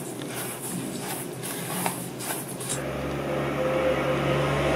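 A silicone spatula stirring and scraping graham cracker crumbs and sugar in a stainless steel bowl, a run of soft gritty strokes. About two and a half seconds in, a steady low hum starts.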